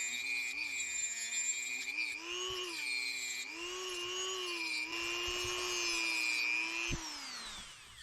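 Dremel rotary tool running, its high whine dipping and rising in pitch, then switched off near the end and winding down with a falling whine.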